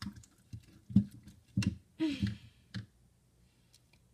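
A spoon clicking and scraping against a bowl while stirring slime freshly dosed with activator: irregular sharp taps, with a brief vocal sound about two seconds in, then it goes still for the last second.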